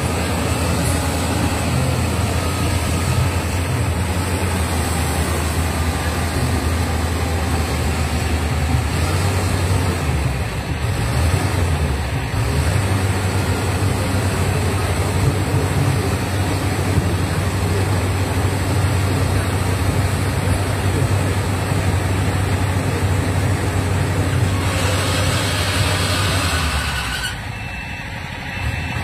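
Crown Sumo 106 rice combine harvester's engine running steadily with a deep hum. About 27 seconds in, the low drone drops away and the sound turns quieter.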